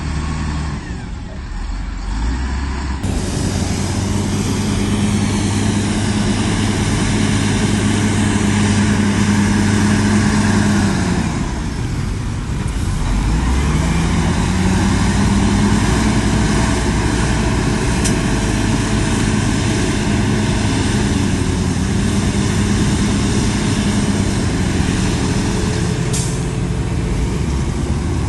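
Heavy diesel engine of earthmoving machinery running hard at high revs, sagging briefly about twelve seconds in and then picking back up. A brief high hiss comes near the end.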